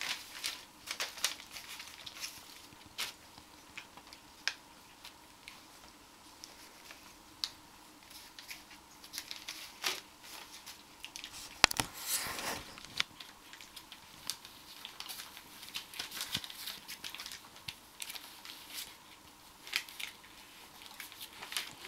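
Puppies rustling, crumpling and tearing at newspaper spread on the floor, in short irregular crackles with a louder burst of rustling about twelve seconds in.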